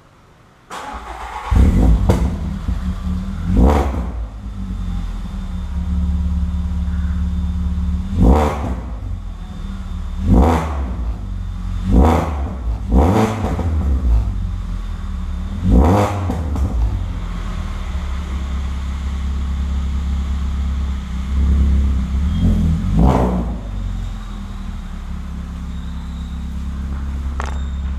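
VW Polo 6R's 1.6 petrol four-cylinder engine starting about a second in, then idling through its Automech exhaust with about nine quick throttle blips, some in close pairs.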